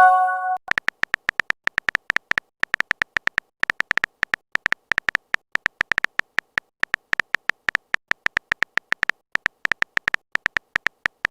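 Messaging-app sound effects: a short multi-tone notification chime, then a long run of quick, short electronic typing beeps, about seven a second in uneven bursts. The run ends on a rising glide that starts another chime.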